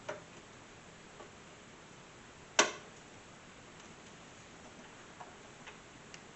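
Hardware being fitted into a desktop PC case: a few light clicks and one sharper knock about two and a half seconds in, as metal and plastic parts touch.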